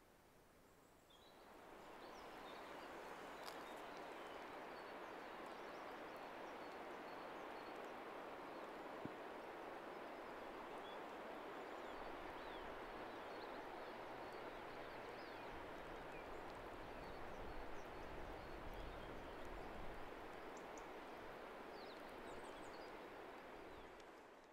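Outdoor mountain ambience: a steady rushing noise fades in about a second and a half in, with faint bird chirps over it. A low rumble comes in midway and eases off, and the sound fades out at the very end.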